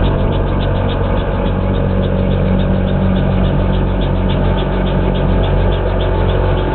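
Zenoah 26 two-stroke petrol engine of a quarter-scale radio-controlled Bell 47G helicopter running steadily in flight, with the rotor blades chopping in an even, rapid pulse.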